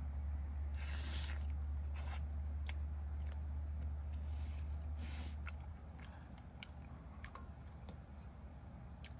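A person chewing food, with small sharp clicks of chopsticks against the pot and a few short rustling bursts. Under it runs a low steady hum that drops away about six seconds in.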